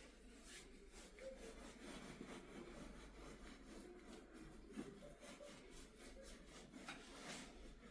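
Faint, soft rubbing of hands massaging the face and head, over a low steady hum.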